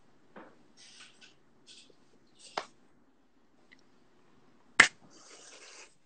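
A few sharp hand claps, the loudest about three-quarters of the way through, with soft hissing between them.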